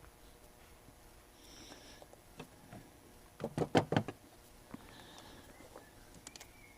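A quick run of sharp knocks and clatter about three and a half seconds in, against an otherwise quiet background with a few faint clicks.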